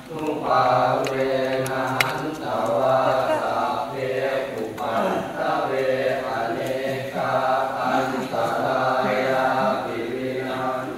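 Thai Buddhist temple chanting: voices reciting prayers in a steady, even-pitched chant in phrases of about a second each, with a brief break for breath right at the start.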